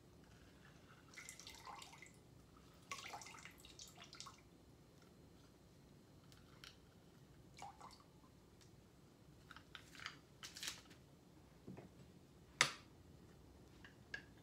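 Lime halves squeezed in a handheld lever-type citrus squeezer: faint squishing and dripping of juice in short scattered bursts, with one sharp click near the end.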